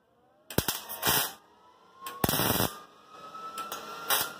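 MIG welder laying short tack and stitch welds on a car's quarter panel seam: about six brief bursts of crackling and sizzling, the longest about half a second, with short pauses between.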